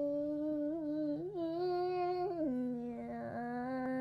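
A young voice singing long held notes, a little higher about a second in and dropping lower near the middle, over a faint steady low hum.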